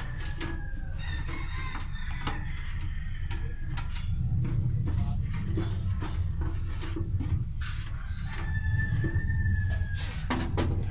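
A rooster crowing with long, slightly falling calls, near the start and again near the end, over a steady low rumble. Short clicks and rustling come from a wire being handled and pushed through a hole in the vehicle's floor.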